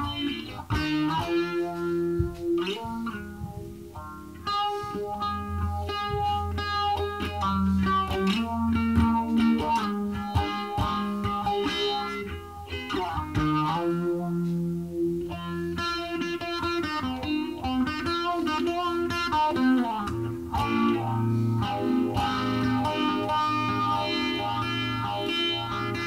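Electric guitar music, a 1979 Ibanez "Black Beauty" electric guitar played through effects: picked single notes and held chords, changing every second or two.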